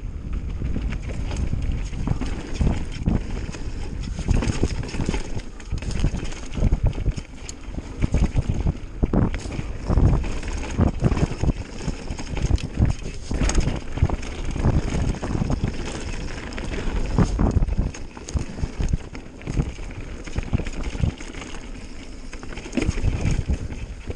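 Mountain bike riding fast down a rough dirt trail: tyres rumbling over dirt and stones, with the bike rattling and knocking over bumps. Wind buffets the camera microphone.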